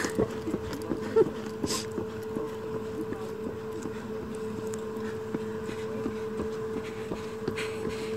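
A steady hum holding two pitches, one low and one an octave above, with faint scattered clicks and a brief hiss about two seconds in.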